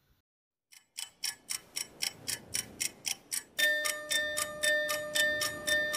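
Clock-like ticking sound effect, about four ticks a second, starting about a second in; a little past halfway a steady held tone comes in under the ticks.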